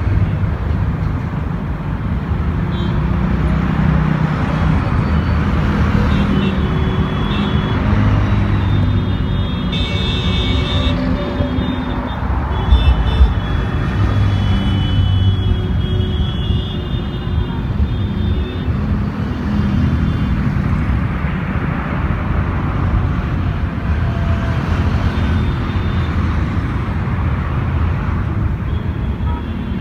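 Road traffic on a wide city road: cars, motorcycles and scooters driving past one after another, with a steady engine and tyre rumble that swells as each vehicle passes. A few short high-pitched tones sound in the middle, and there is a brief loud peak about thirteen seconds in.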